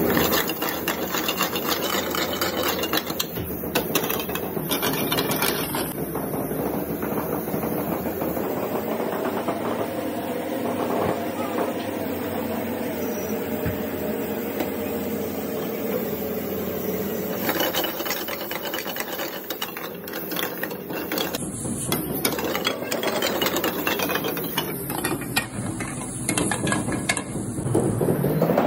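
Steel ladle scraping and stirring sliced onions, green peppers and paneer around a metal frying pan on the stove: a rasping scrape of metal on metal, repeated stroke after stroke.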